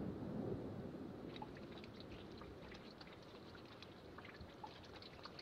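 Splashing of rain on water fades out in the first second. Then water drips from a wet rock ledge in faint, irregular, scattered drops, as the rain stops.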